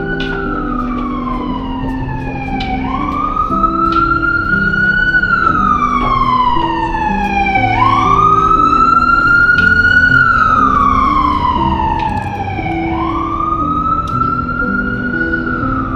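Emergency vehicle siren on a slow wail, its pitch rising quickly and then falling slowly in cycles of about five seconds, three rises in all.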